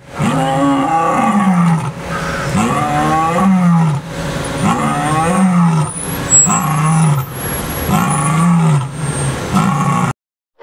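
A lion roaring repeatedly: about six loud, drawn-out roars, each rising and falling in pitch, ending abruptly near the end.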